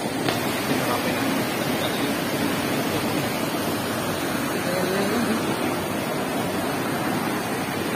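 Fast mountain river rushing over rocks: a steady, even wash of water.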